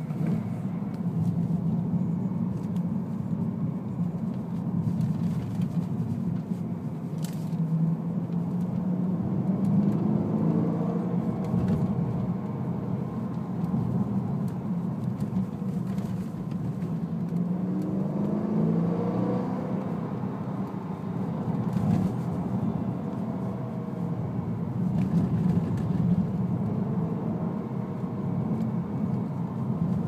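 BMW E90 M3's V8 engine heard from inside the cabin while driving, with road noise. The engine pitch rises twice under acceleration, about a third of the way in and again past halfway.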